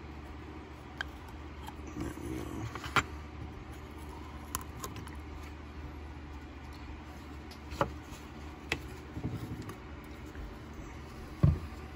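Sparse small clicks and taps of hands working a plastic bottle and the foil seal over its mouth, pierced with a knife tip, with a louder dull knock near the end; a steady low hum underneath.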